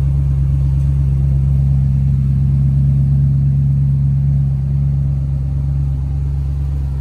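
A 2002 Maserati Cambiocorsa's 4.2-litre V8 idling steadily through its tuned aftermarket exhaust, a low even rumble. It gets a little quieter from about four and a half seconds in.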